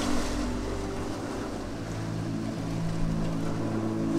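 A steady engine drone over the wash of sea surf.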